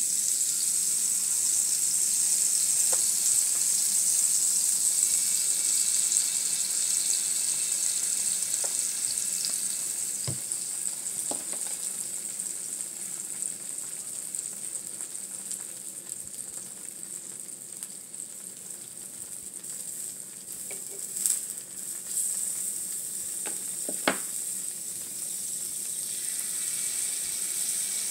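Small rounds of pancake batter sizzling on a hot flat griddle. The steady sizzle eases off midway and picks up again near the end as fresh batter is squeezed on, with a couple of sharp taps late on.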